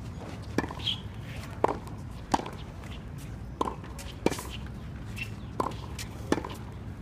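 Tennis practice rally: a tennis ball struck back and forth with rackets, a sharp pop at each stroke, seven in all, some louder than others.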